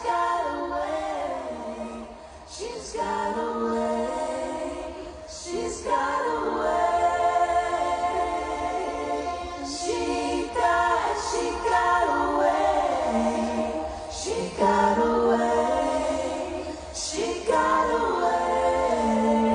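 Layered, choir-like female vocal harmonies holding long notes, in phrases that restart about every four seconds, over a steady low bass.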